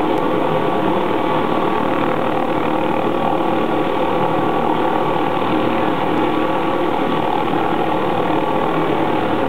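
McDonnell Douglas MD-520N NOTAR helicopter's turbine running steadily close by: a constant rush with a steady whine through it.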